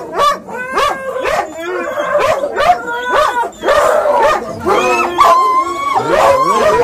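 Harnessed sled dogs barking, yipping and howling excitedly, several at once in a constant overlapping din, with a longer held howl about five seconds in.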